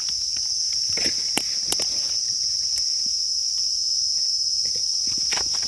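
Steady, high-pitched drone of forest insects, one unbroken tone, with a few scattered light clicks and rustles.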